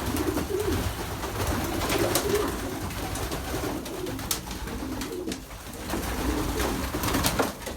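Several pigeons cooing over and over in a small loft, with a few short sharp clicks and knocks among them.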